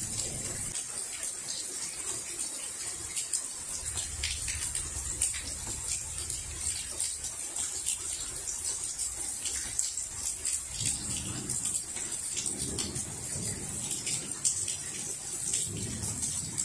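Steady rain falling during a thunderstorm, with many single drops ticking close by. Low rumbles of distant thunder swell and fade a few times, about four seconds in, past the middle and near the end.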